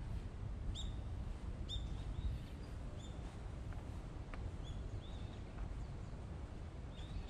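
Birds chirping in short, high calls, several in the first half and a few more near the end, over a steady low background rumble.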